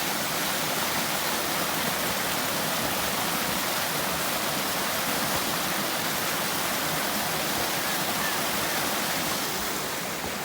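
Steady rushing of a waterfall, an even roar of falling water that eases slightly near the end.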